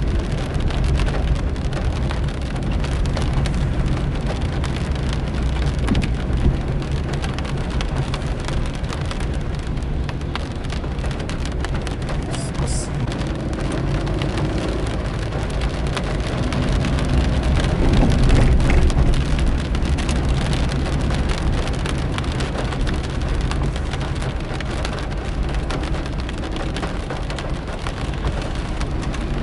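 Rain falling on a moving car, heard from inside the cabin: a dense, steady spatter of raindrop ticks on the roof and windshield over the low, even hum of the car's engine and tyres on the wet road.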